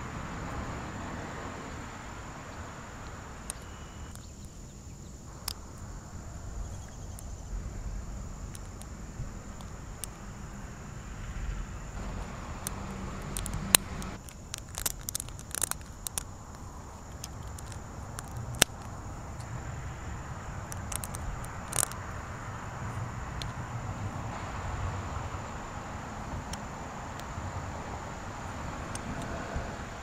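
Small Lego plates clicking and snapping against each other as they are fitted together by hand: a cluster of sharp clicks about halfway through and a few single clicks after, over a steady background hiss.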